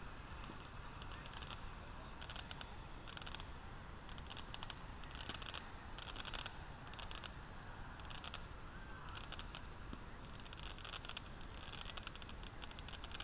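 Distant firework cake firing: faint bursts of crackling, each a dense patter of tiny pops, coming about once a second, over a steady low outdoor rumble.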